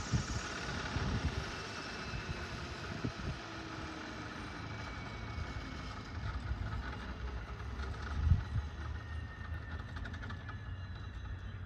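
Airbus EC135 helicopter's twin turbine engines and main rotor winding down on the ground, the turbine whine slowly falling in pitch as the rotor slows. A low uneven rumble runs underneath and swells about eight seconds in.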